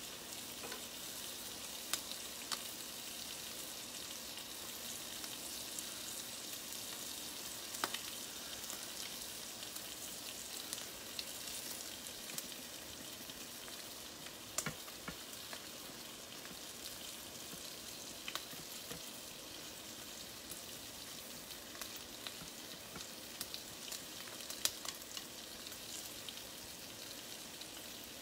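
Sliced meat frying on a stovetop griddle: a steady sizzling hiss with scattered pops and crackles.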